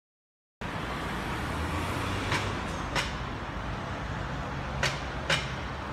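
Steady street background noise with a low traffic rumble, starting about half a second in. It is broken by four short, sharp high sounds, two close together near the middle and two near the end.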